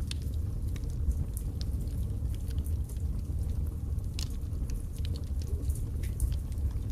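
Birch logs burning in a fireplace: a steady low rumble of the flames with irregular sharp crackles and pops.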